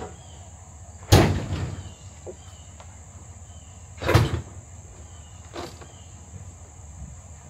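Metal clanks of a trailer hitch ball mount being pulled from a pickup truck's receiver and the tailgate being let down to stow it in the bed: a loud ringing clank about a second in, another about four seconds in, and a lighter knock about a second and a half later.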